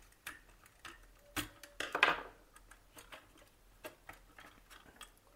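Small clicks and ticks of a screwdriver and wire being handled on a plastic PVC switchboard, with a short rubbing noise about two seconds in.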